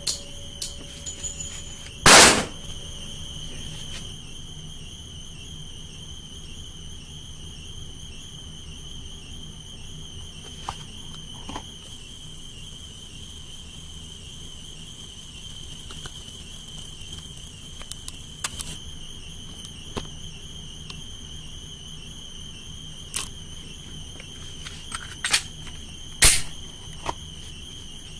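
Two loud single pistol shots, one about two seconds in and one near the end, from a Glock 30S in .45 ACP. Fainter sharp cracks and clicks fall in between, over a steady high-pitched tone.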